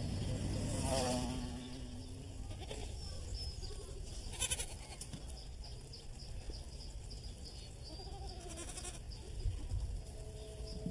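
Goats bleating: a wavering bleat about a second in and another about eight seconds in.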